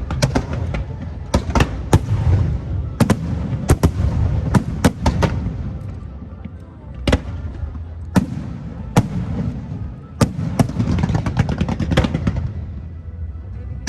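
Aerial fireworks bursting in an irregular barrage of sharp bangs over a low rumble. The bangs come thick and fast at first, thin out in the middle, then bunch up again before tailing off near the end.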